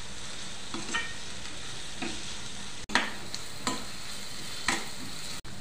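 Chopped onions and green chillies frying in oil in a non-stick kadai, with a steady sizzle, while a spatula scrapes and stirs through them about once a second.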